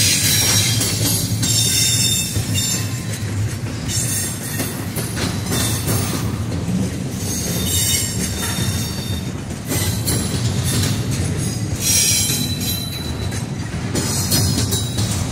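Double-stack intermodal freight cars rolling past, with a steady rumble of steel wheels on the rails. High-pitched wheel squeal comes and goes every second or two.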